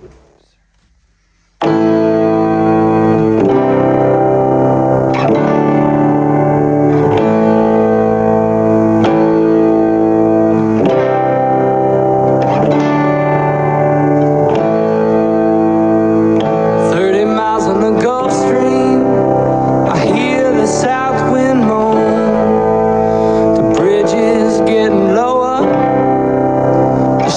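Background music: after a second and a half of near silence, a song starts suddenly with guitar chords that change every couple of seconds. A wavering melody line joins in over the second half.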